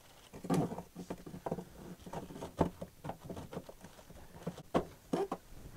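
Irregular scratching, rustling and light knocks of hands digging insulation out of a freshly cut hole in a camper's interior wall panel, clearing it through to the outer skin.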